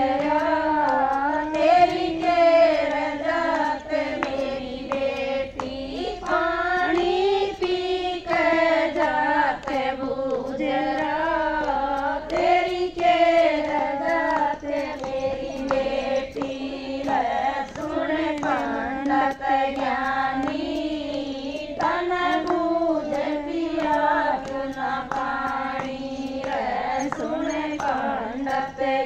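A group of women singing a Hindi devotional bhajan together, voices only, in a continuous melodic chant.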